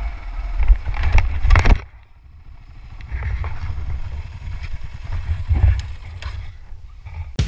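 Kawasaki KLR 650 single-cylinder motorcycle engine running, with knocks and clatter over a muddy track. The sound drops suddenly a little under two seconds in, and a lower, steady engine rumble with occasional clicks takes over a second or so later.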